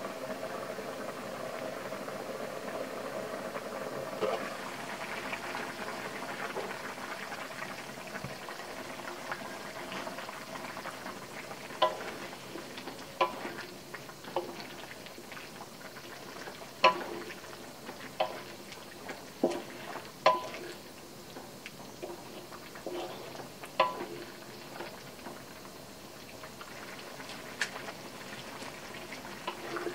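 Vegetables and sauce bubbling at a simmer. From about ten seconds in come irregular sharp knocks of a wooden spatula against the wok as the simmering sauce is stirred.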